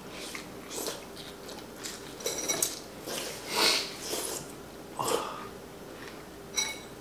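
Eating sounds: chewing and slurping from a soup bowl of Thai hot pot, in several short bursts. There are a couple of light clinks of utensils on dishes, one about halfway through and one near the end.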